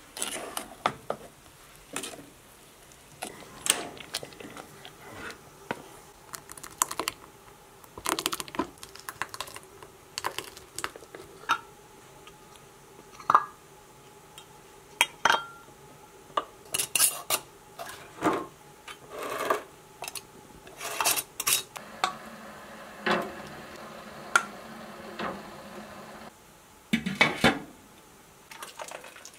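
Kitchen clatter: a wooden spoon stirring and scraping in a stainless steel pot, with glass jars and a metal pot lid knocking and clinking. It is a long run of separate sharp clinks and knocks.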